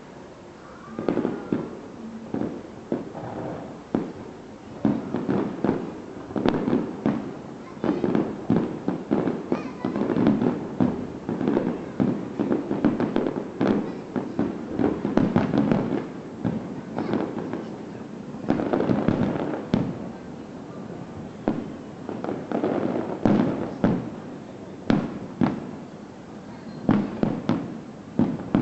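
Aerial fireworks display: shells bursting one after another in quick, irregular succession, building to a dense barrage in the middle.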